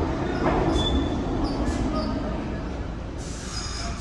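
R68-family New York City Subway train pulling into an underground station and slowing: a steady rumble of wheels on rail that slowly fades as the train slows, with several short high-pitched squeals as it brakes.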